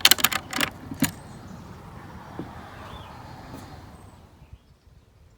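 A quick run of sharp clicks and knocks in the first second, as the small door of a weta hotel is shut and fastened, then a faint outdoor background that fades away about four seconds in.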